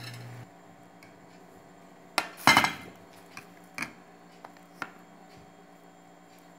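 A few sharp clinks and knocks of ceramic plates and a spoon being handled on a table, the loudest about two and a half seconds in with a short ring, then several lighter taps. A low steady hum stops about half a second in.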